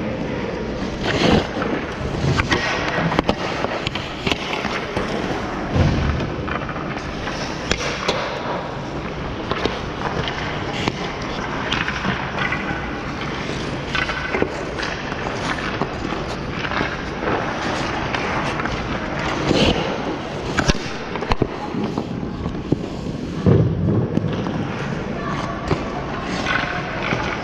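Ice skate blades scraping and carving on ice, a continuous hiss broken by scattered sharp knocks and thuds.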